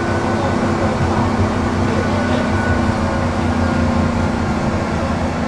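Tram running along the track: a steady rumble of wheels on rails with an even hum from its motors.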